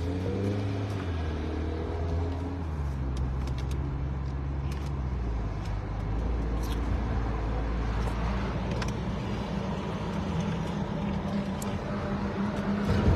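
Road and engine noise inside the cabin of a moving car: a steady low rumble.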